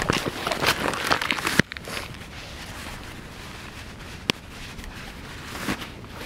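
Nylon stuff sack and rain jacket rustling and crinkling as they are pulled out of a backpack, loud for the first second and a half and then cut off, leaving faint handling noise with a single sharp click about four seconds in.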